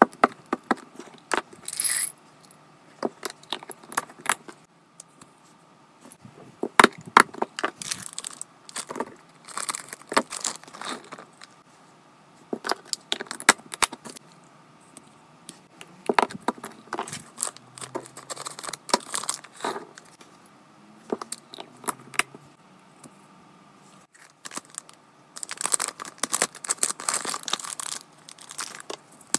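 Small items and packaging being handled and unpacked: irregular clicks, taps and rustles, getting denser near the end.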